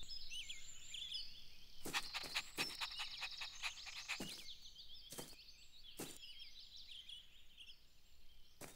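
Garden ambience of small birds chirping and twittering, a busy run of short high calls, with several brief clicks between about two and six seconds in.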